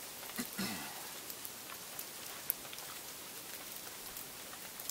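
Light rain falling: a steady hiss with scattered sharp ticks of drops. A short voice sound is heard about half a second in.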